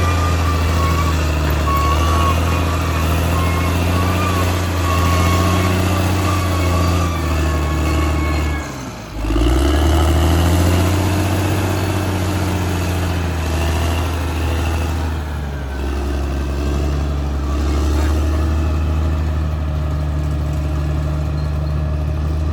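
Caterpillar D6R XL bulldozer's diesel engine running steadily. About nine seconds in, its pitch and loudness sag briefly, then pick back up.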